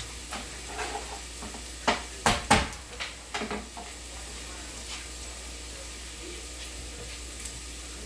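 Food sizzling in a pan on the stove, with a utensil knocking and scraping against the cookware: a few loud knocks about two seconds in, then lighter ones.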